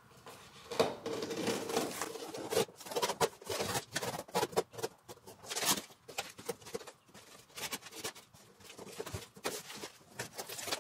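Scissors slicing packing tape and cardboard on a large shipping box, with the cardboard rustling and scraping in irregular bursts. The cutting eases off for a few seconds past the middle, then picks up again.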